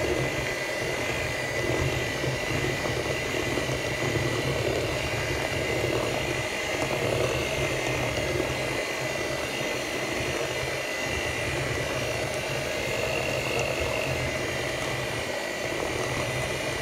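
Electric Moulinex hand mixer running steadily at a constant speed, its beaters mixing chocolate cake batter in a stainless steel bowl.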